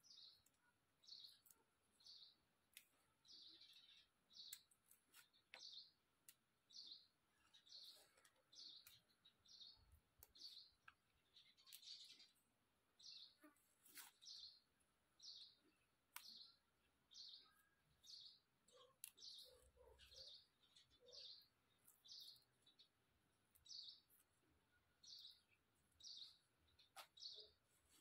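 Faint, high bird chirps, one short chirp repeated steadily a little more than once a second, with soft clicks and rustles from leafy vegetable greens being handled in a woven bamboo basket.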